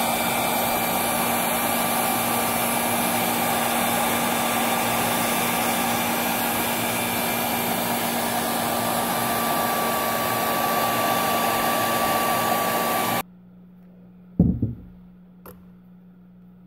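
Handheld hair dryer blowing hot air steadily onto a phone's screen, then switched off abruptly about thirteen seconds in. A short thump and a faint click follow.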